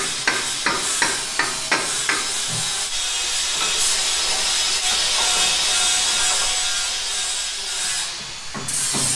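Mallet knocking a steel pipe into its fitting, about seven sharp knocks roughly three a second over the first two seconds, followed by a steady hissing, rasping noise for most of the rest.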